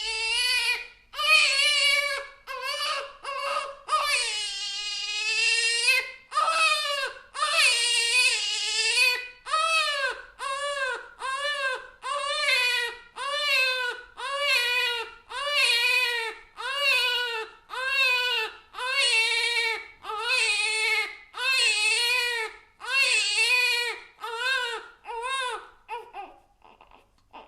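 Infant crying: a few long wails, then a run of short, rhythmic cries about one a second, breaking off briefly near the end.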